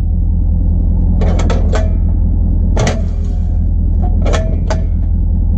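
Metallic clicks and clanks of a fifth-wheel hitch's jaw mechanism being worked, in a quick cluster of three or four about a second in, a single sharp one near the middle and three more near the end. Under them, a truck engine idles steadily.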